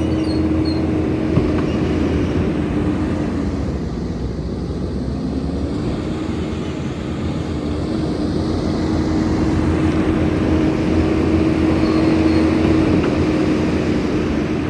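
Tracked skid steer's diesel engine running at high revs, its pitch sagging about four seconds in and climbing back a couple of seconds later as the machine works.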